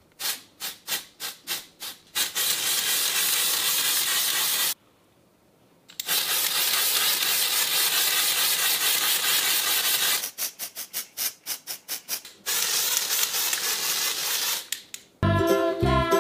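Aerosol spray cans of wash-out hair colour spraying along strands of hair. First comes a run of quick short puffs, then long steady hisses, broken by one brief gap and a second run of short puffs. Music comes in near the end.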